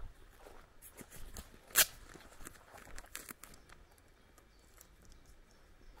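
Footsteps on a grassy dirt track, soft scattered crunches and rustles, with one sharp crack about two seconds in that is the loudest sound. The steps grow fainter in the last couple of seconds.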